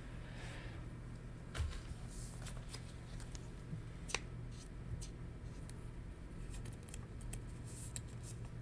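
Light plastic rustling and a few small clicks of a trading card being slid into a protective plastic sleeve by hand, over a steady low hum.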